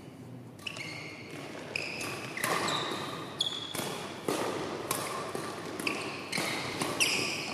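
Badminton doubles rally: a quick run of sharp racket strikes on the shuttlecock, starting a little under a second in, mixed with short high squeaks of sports shoes on the court floor.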